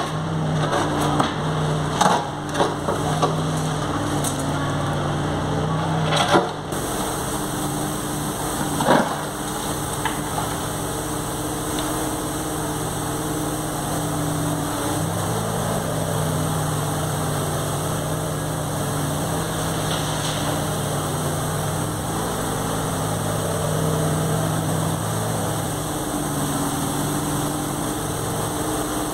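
A JCB 803Plus mini excavator's diesel engine runs steadily while its bucket scrapes and knocks through broken concrete rubble. There are several sharp clatters of concrete in the first seven seconds and one more about nine seconds in.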